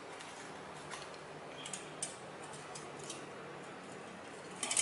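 A few faint, light clicks and ticks from thin aluminium beer-can strips and a small metal pin being handled and fitted together, with a short cluster of clicks near the end.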